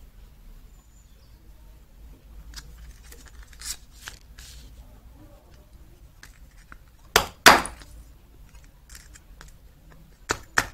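Knife blade scraping and prying at the hard black plastic casing of a small box film capacitor: scattered light scrapes and clicks, with two sharp clicks about seven seconds in and two more near the end.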